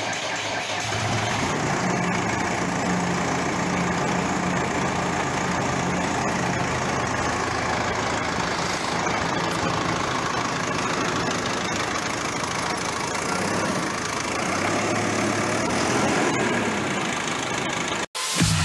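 JCB 530-70 telehandler's diesel engine idling steadily, cut off suddenly near the end.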